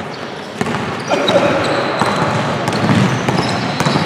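Basketball being dribbled on a hardwood gym floor during play, with short sneaker squeaks and scattered players' voices echoing in the large gym.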